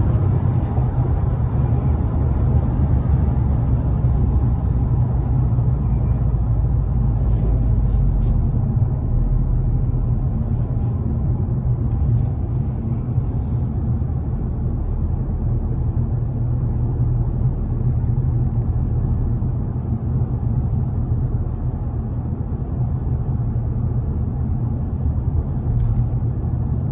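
Steady low rumble heard inside the cabin of a Toyota GR Yaris, its turbocharged 1.6-litre three-cylinder engine droning together with road noise as the car drives at a steady pace.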